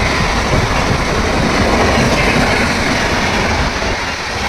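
Indian Railways express train with red coaches passing through a station on the next track, its wheels running loudly on the rails in a steady rumble that eases slightly near the end.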